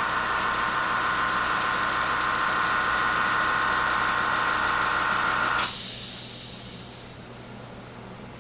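Small airbrush air compressor running steadily, then cutting off a little past halfway with a sharp hiss of released air that fades over about a second and a half. A fainter hiss stays on after it.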